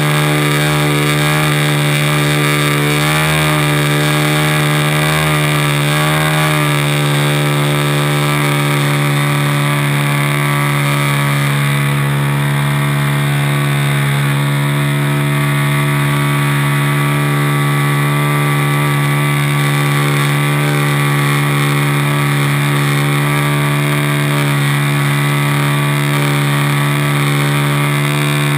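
RC Piper Cub model's motor and propeller running steadily in flight, heard from inside the model's cabin along with rushing air. The pitch wavers up and down a few times about three to six seconds in, then holds steady.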